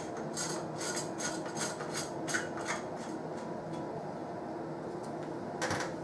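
A light bulb being screwed into a brass pendant-lamp socket: a run of short scraping, rubbing clicks of the metal threads over the first few seconds, with one more brief scrape near the end, over a steady background hum.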